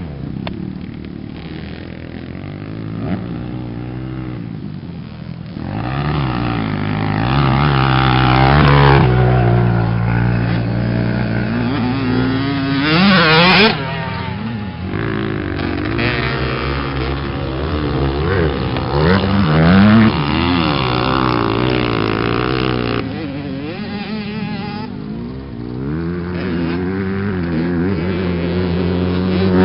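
Motocross bikes' engines revving up and falling back repeatedly as they ride the track, growing louder as they come closer about a quarter of the way in, easing off for a while, and rising again near the end.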